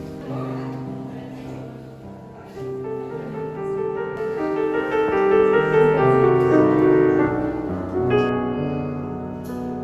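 Background solo piano music: slow, sustained notes that swell louder in the middle and soften near the end.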